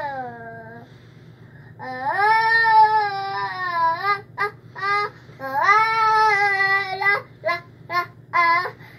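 A young child singing, mostly in long held notes that swoop up at the start of each, after a pause of about a second near the beginning; near the end the singing breaks into short, quick syllables.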